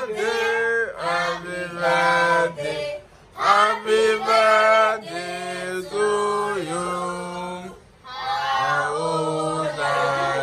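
Several voices singing together in slow, long held notes, pausing briefly twice.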